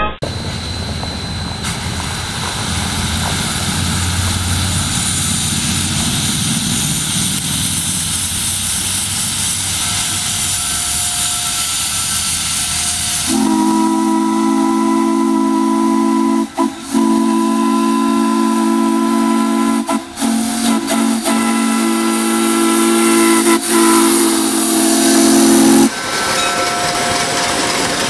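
Steam hissing for about thirteen seconds, then a Hancock three-chime steam whistle replica blows one long, steady chord of several notes for about twelve seconds, dipping briefly twice, before dropping back to a hiss.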